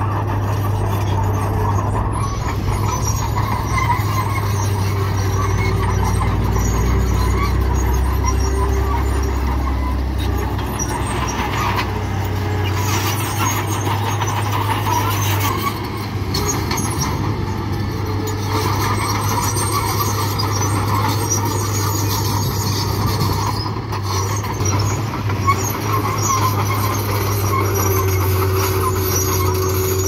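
Small crawler bulldozer's diesel engine running steadily as it pushes rock and dirt with its blade, with the low engine note growing heavier for a few seconds as it takes the load. The steel tracks clatter as it moves.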